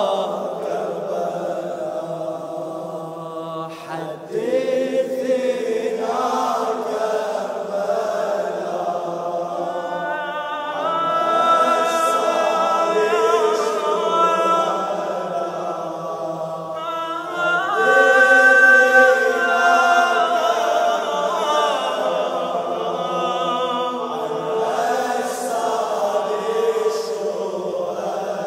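A male radood chanting a Shia latmiya (Muharram mourning elegy) in Arabic: long, held, wavering sung lines with layered choir-like voices behind him.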